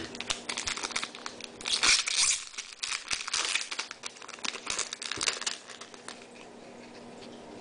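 A foil trading-card pack wrapper being torn open and crinkled by hand: a burst of tearing and crinkling about two seconds in, then lighter rustling that dies away after about five seconds.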